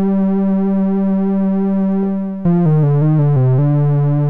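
Synthesizers.com modular analog synthesizer (Moog-clone modules) holds one note, then plays a quick run of falling notes about two and a half seconds in that settles on a lower held note. The patch is ADSR-driven frequency modulation of the LFO plus pulse width modulation: a delayed vibrato that swells in on held notes and stays out of fast playing.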